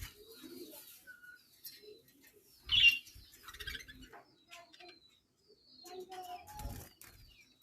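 Budgerigar chirping and chattering in short, scattered bursts, loudest about three seconds in, with a few low knocks among them.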